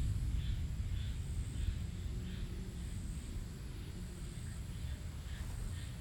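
Distant thunder rolling low and slowly fading from an electrical storm. Over it runs a steady high insect buzz and a faint chirp repeating about twice a second.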